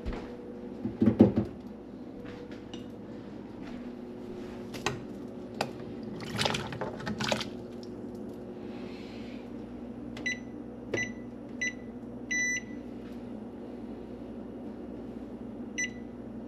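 Short electronic beeps from a kitchen appliance's keypad: three short beeps about a second apart, a longer beep, then one more a few seconds later. Before them come a few knocks and clatters of kitchenware, the loudest about a second in.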